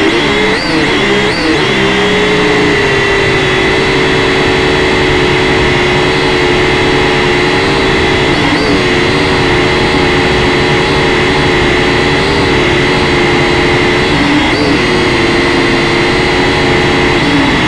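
Quadcopter's motors and propellers running with a steady whine, heard from the drone's own camera. The pitch wavers up and down several times in the first second or so, then a few more times later and near the end as the throttle changes.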